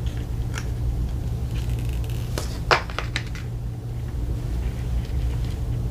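The protective screen wrap being peeled off a new iPhone 15 Pro Max by its pull tab: a few short, sharp crackles, the loudest near the middle. A steady low hum runs underneath.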